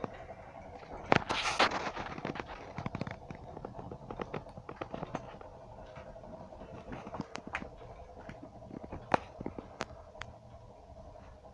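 Wood fire burning in a homemade 8 mm steel sauna stove, crackling with irregular sharp snaps and pops over a steady hum.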